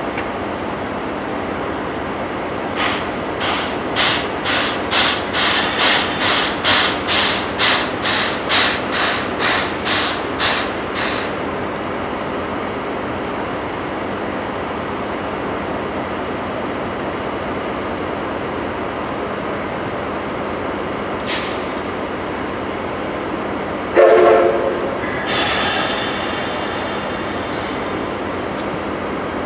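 C11 steam locomotive getting under way: a run of about twenty sharp exhaust chuffs, roughly two to three a second, swelling and then fading. Later comes a sudden short whistle blast, followed by a hiss of steam that dies away over a few seconds.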